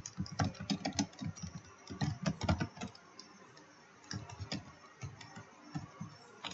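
Typing on a computer keyboard: a quick run of keystrokes for about three seconds, a short pause, then slower, scattered keystrokes.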